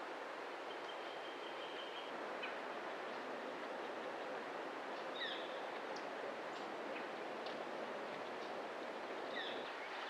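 Outdoor ambience of steady hiss with a bird calling: a short held whistle about a second in, then two short high calls that slide downward, about four seconds apart.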